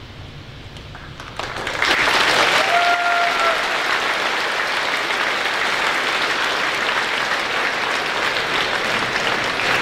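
Audience applause breaking out about a second and a half in and going on steadily, with one brief high call from the crowd early in the clapping.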